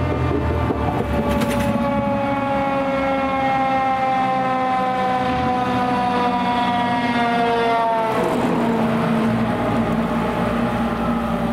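KME fire engine's siren winding down in one long, slowly falling wail that drops away about eight seconds in, with the truck's engine running underneath.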